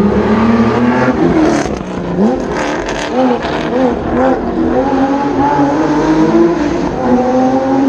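Rally car engine on a special stage: the revs drop about a second in, then rise and fall several times through quick gear changes, with a run of sharp crackles, before climbing steadily again under acceleration.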